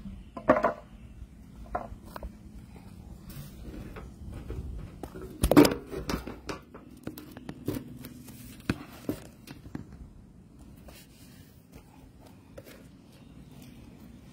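Scattered knocks and taps of things being handled, with one sharp, loud knock about five and a half seconds in.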